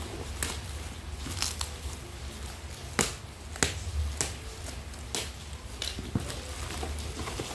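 Scattered sharp clicks and knocks at irregular spacing over a low rumble, with the two loudest knocks close together about three seconds in.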